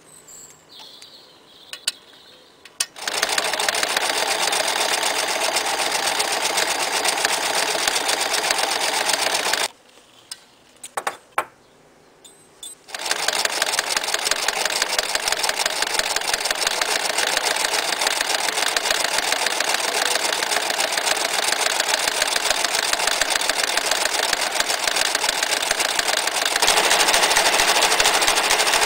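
Frister & Rossmann 503 electric sewing machine stitching through a thick leather strap with its rolling foot, a fast, steady run of needle strokes. It opens with a few clicks as the foot is fitted. It stops briefly about ten seconds in, then runs again, louder near the end.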